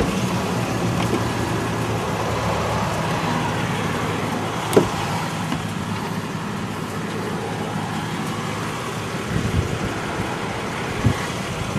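A 2004 Toyota Tacoma pickup idling in neutral with a steady engine hum under outdoor road noise. A sharp click comes right at the start and a single knock about five seconds in.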